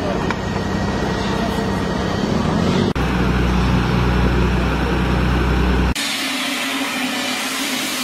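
Steady running of heavy construction machinery engines. About three seconds in it cuts abruptly to a deeper, louder rumble, and about six seconds in to a thinner hiss over a low hum.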